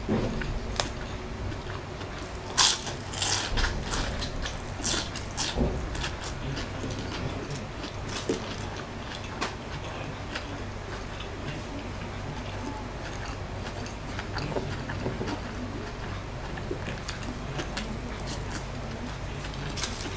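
Close-up eating of crispy fried lumpia shanghai with rice: a run of loud bites and chews a few seconds in, then quieter chewing with occasional sharp clicks.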